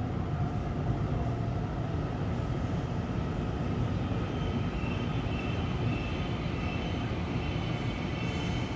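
TRA EMU900 electric commuter train at the station platform, a steady low drone with a faint pulsing high tone in the middle.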